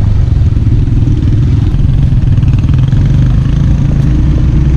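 Motorcycle engine running steadily while riding, a loud even drone.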